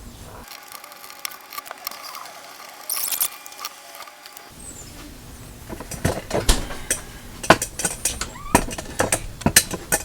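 Screws of an old door deadbolt being backed out by hand: thin metallic squeaking with a brief high squeal, then from about halfway a run of sharp, irregular clicks and knocks of metal lock parts being worked loose.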